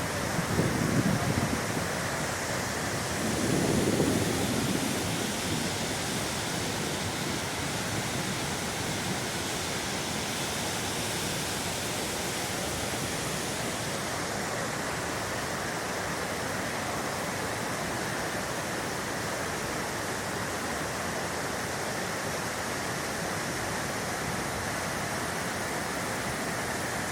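Waterfall rushing, a steady, even roar of falling water. Two short low rumbles rise over it about a second in and again around four seconds in.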